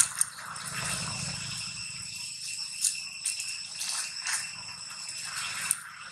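Dry leaves crackling and rustling in short irregular bursts as a long-tailed macaque moves and forages through leaf litter, over a steady high-pitched insect drone.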